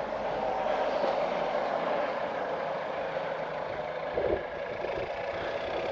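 Steady rushing outdoor background noise with no clear pitch, and one brief soft thump about four seconds in.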